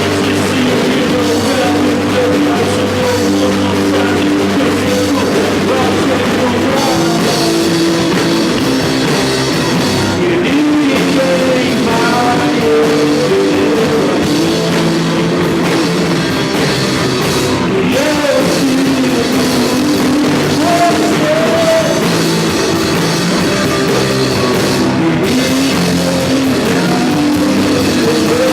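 Rock band playing a song live, electric guitars over a drum kit, continuous and loud.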